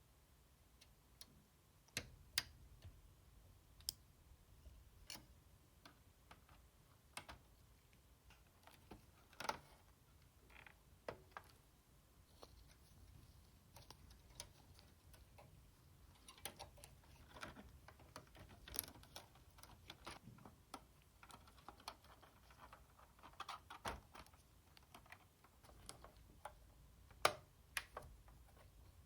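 Sparse, irregular small clicks and taps of PS4 Slim parts and tools being handled during reassembly, with a few sharper knocks.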